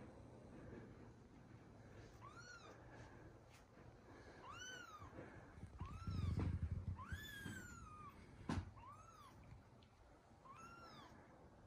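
Calico kitten meowing six times, short high rise-and-fall meows a second or two apart, one drawn out longer than the others. A low muffled bump comes near the middle and a sharp click shortly after.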